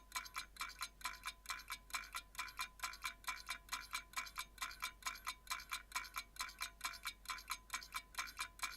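Outro sound effect: an even, rapid train of bright chime-like ticks, about four to five a second, over a steady ringing tone, stopping abruptly at the end.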